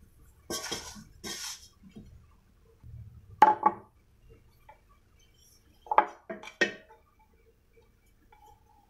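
Steel kitchenware handled on a counter: two short scraping rustles in a steel bowl, then a sharp ringing clank about three and a half seconds in and two more clinks around six seconds in.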